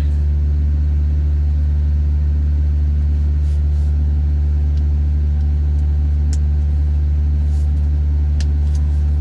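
Diesel engine idling with a steady low hum, with a few light clicks as a blower motor housing is handled.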